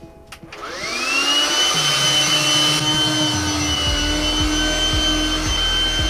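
Bort BSS-36-Li cordless window vacuum switching on: its motor spins up with a rising whine and settles into a steady high whine. From about halfway in, a low rumble with regular soft knocks joins as the nozzle is drawn over the wet glass, sucking up the washing liquid.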